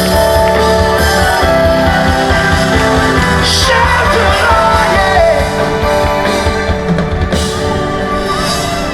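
Live gospel band music with long sustained chords, a voice singing over it.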